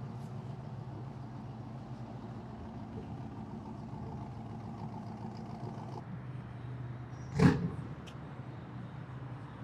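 A vehicle's engine hum from street traffic, with one sharp, loud knock about seven and a half seconds in.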